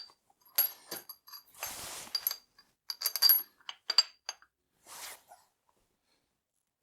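Steel hold-down clamps being handled on the milling machine: a series of sharp metallic clinks with short ringing, mixed with brief scrapes of metal sliding on metal. The sounds die away about five seconds in.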